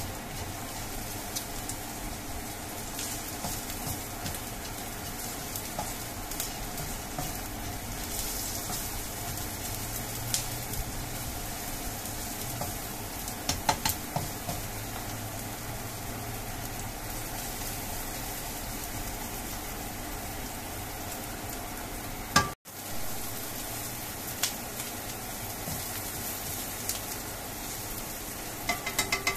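Chopped ginger, garlic and spring onions sizzling in hot oil in a nonstick wok, with the spatula stirring and scraping through them. There are light taps of the spatula on the pan throughout, a few sharper clicks about halfway, and one loud knock about three-quarters of the way in.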